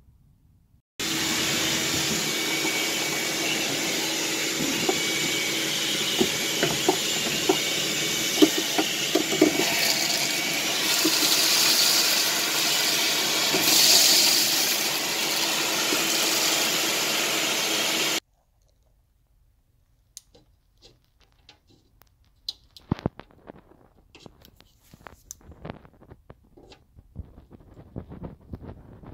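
A vacuum cleaner running steadily for about 17 seconds, with small rattling clicks of debris, likely shattered window glass, being drawn up from inside the car door. It shuts off suddenly, followed by faint handling clicks and knocks.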